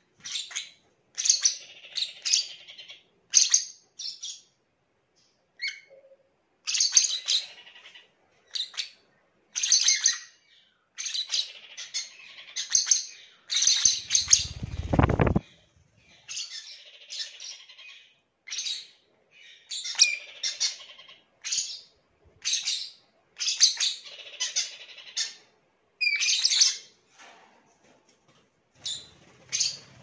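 Small pet parrots chirping in quick, high-pitched bursts, with a brief low rumble about halfway through.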